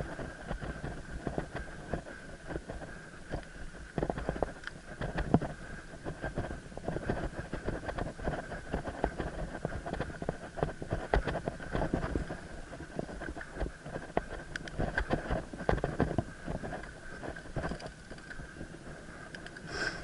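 Mountain bike clattering over a bumpy dirt forest trail, picked up by a head-mounted camera: a continuous jumble of small knocks and rattles with a low rumble, wind on the microphone and a steady high whine.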